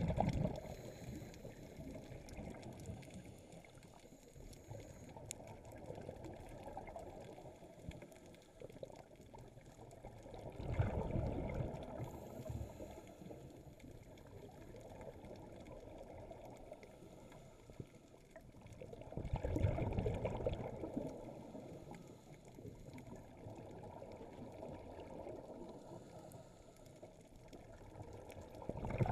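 Muffled underwater ambience heard through a camera housing. A rush of a diver's exhaled bubbles swells up about every nine seconds, three times in all.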